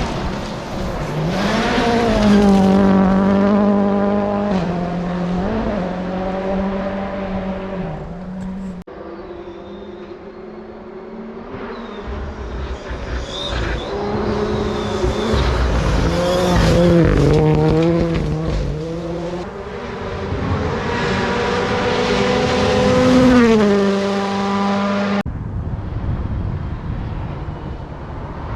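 Rally cars driven flat out on a gravel stage, engines held at high revs with repeated rises and dips in pitch as the drivers shift and lift. The sound changes abruptly twice, about a third of the way in and near the end, as one car's run gives way to the next.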